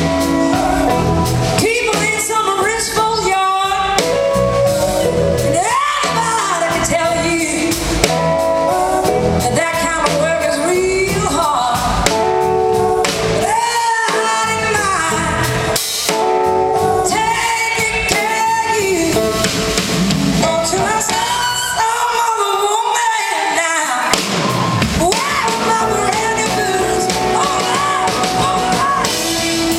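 Live blues-rock band: a woman singing lead over electric guitars, bass guitar and drum kit.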